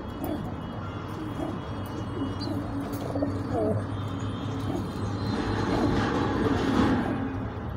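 Domestic pigeons cooing in low, wavering calls that grow louder near the end, over a steady low hum.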